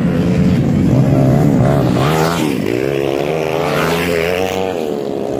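Small single-cylinder motorcycle engines of CG-class dirt-track race bikes revving, rising and falling in pitch as a bike pulls away past a fallen one.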